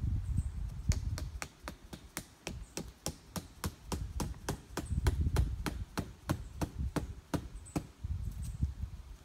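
A quick, even series of sharp knocks, about three a second, starting about a second in and stopping near the eight-second mark, over a low rumble.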